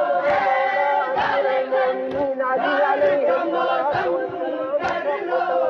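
Crowd of men chanting a mourning lament in unison, loud and continuous, with a sharp beat about once a second from hands striking chests in matam.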